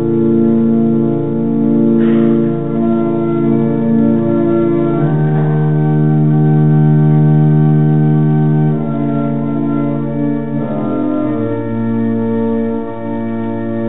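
Organ playing slow, sustained chords, each held for a few seconds before moving to the next.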